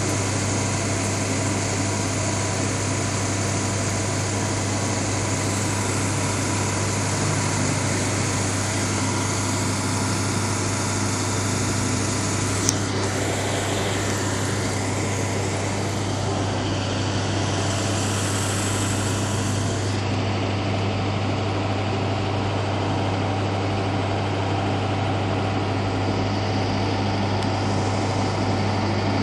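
Parked ambulance idling, a steady low mechanical hum that does not change. One brief sharp click about halfway through.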